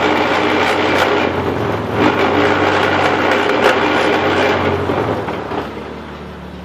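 Grinding and clunking from the drivetrain of a jacked-up Jeep Grand Cherokee WJ running in gear in 4x4, over the steady hum of the engine; the grinding dies down about five seconds in, leaving the engine. The noise comes from a worn CV joint on the front driveshaft's Rzeppa joint at the 242 Selec-Trac transfer case end, which the owner at first took for stripped transfer case gears.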